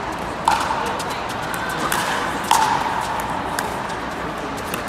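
Pickleball rally: sharp pops of paddles striking the hollow plastic ball, several hits in a few seconds. The loudest, about half a second and two and a half seconds in, each leave a short ring, over a steady murmur of the hall.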